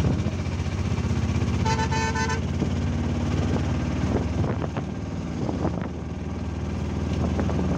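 Auto-rickshaw engine running with a steady, pulsing low rumble amid street traffic. A vehicle horn sounds once, for under a second, about two seconds in.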